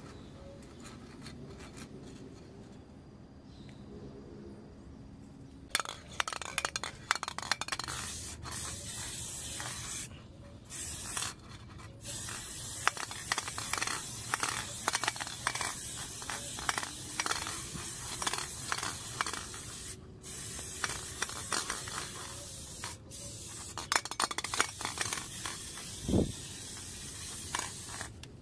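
Aerosol spray-paint can hissing in long bursts with brief breaks as it paints a truck's steel wheel rim. The spraying starts about six seconds in, after a quieter stretch.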